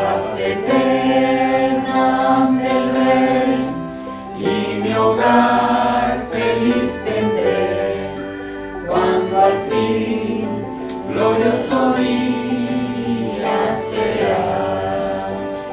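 A small mixed group of men and women singing a Spanish hymn together in long held notes, phrase by phrase, with short breaks between lines.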